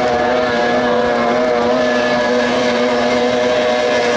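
30 hp outboard engines of racing tunnel boats running flat out: a steady high-pitched engine whine whose pitch wavers slightly, over the hiss of the hulls on the water.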